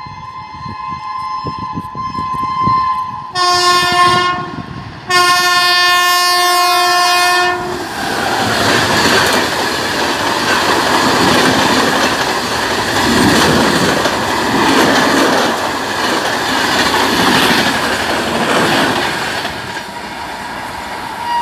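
Shatabdi Express running through at about 112 km/h: the locomotive's horn sounds faintly at first, then gives two loud blasts, a short one and a longer one of about two and a half seconds. Then comes the steady rush and clatter of the coaches going past at speed, easing near the end as the tail passes.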